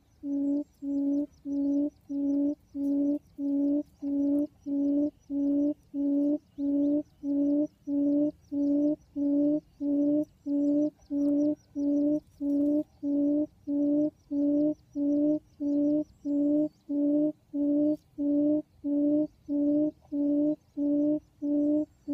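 Quail lure call: a low hooting note at one steady pitch, repeated evenly about three times every two seconds, calling wild quail to the trap.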